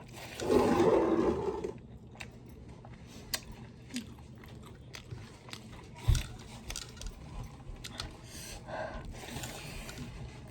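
Close-up chewing and crunching of spicy pork pieces, with a loud crunching burst shortly after the start, scattered small mouth clicks, and a single sharp knock about six seconds in.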